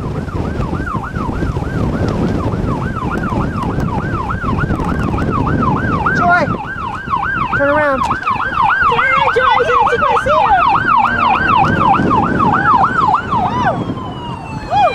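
Emergency vehicle siren on a fast yelp, sweeping up and down about three times a second, with a second siren joining about halfway through. Strong wind buffets the microphone, heaviest in the first half.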